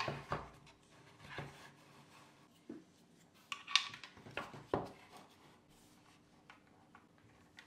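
Handling sounds inside a plywood speaker enclosure: a few scattered knocks, rubs and clicks as wires and a crossover board are pushed into the cabinet. Only faint ticks follow in the last couple of seconds.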